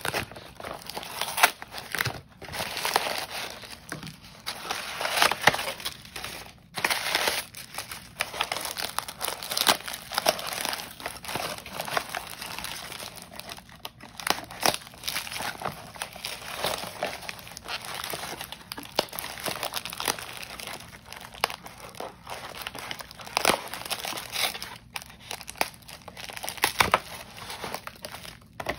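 Crumpled brown kraft packing paper crinkling and rustling as it is pulled out of a cardboard shipping box, with bits of cardboard tearing. The crackling is continuous and irregular, with many sharp crackles throughout.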